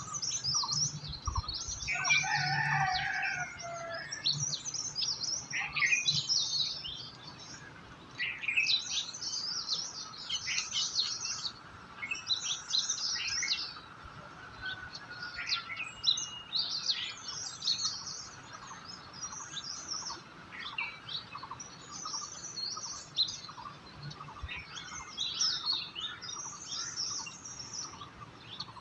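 Many small songbirds chirping and twittering in quick bursts, overlapping throughout. A lower, drawn-out bird call stands out about two seconds in.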